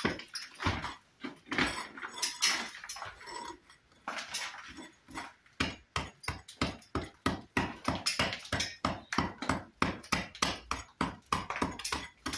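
A 400-gram mason's hammer striking brick in quick repeated blows, about three a second with a couple of short pauses, chipping the damaged brick faces back to take cut brick slips.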